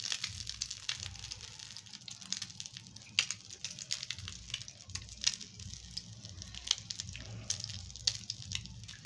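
Egg-dipped potato cutlets shallow-frying in hot oil in a pan: a steady sizzle with frequent sharp crackles and pops.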